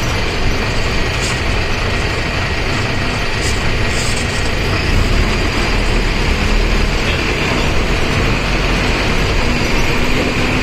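Mercedes-Benz OF1519 BlueTec 5 bus's diesel engine and radiator cooling fan running steadily, a constant rumble and rush heard from inside the bus, with a few brief rattles.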